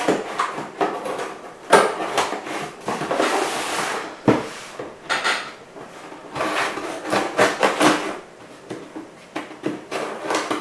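Scissors slitting the packing tape on a cardboard shipping box: irregular scraping strokes along the seam, with a few sharp clicks and knocks from the blade and the cardboard.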